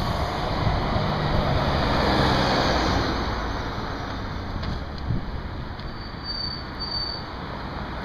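Road traffic: a passing vehicle is loudest over the first few seconds and then fades into a steady traffic hiss. Two short high chirps come near the end.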